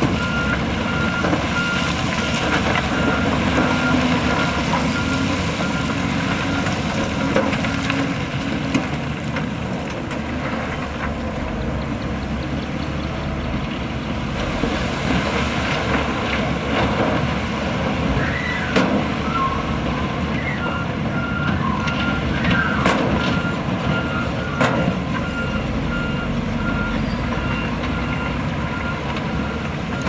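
Heavy earthmoving machinery running steadily: diesel engines of dump trucks, a bulldozer and a wheel loader. A vehicle's reversing alarm beeps repeatedly, high-pitched, for the first several seconds and again over the last third. Occasional knocks and clatter come from rock being tipped and pushed.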